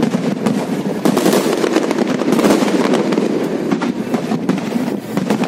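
Fireworks going off in a rapid, continuous barrage of bangs and crackling.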